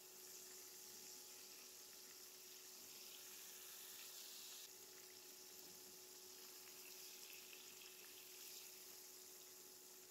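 Near silence: a faint steady hiss with a low electrical hum underneath.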